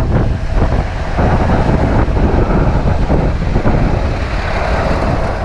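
Semi truck's diesel engine running, a loud, uneven low rumble, with wind buffeting the microphone.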